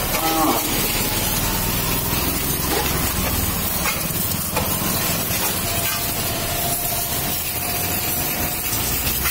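High-pressure water jet spraying onto a motorcycle's wheels, engine and swingarm: a steady hissing spray with water splattering off the metal and tyres, over a steady low rumble.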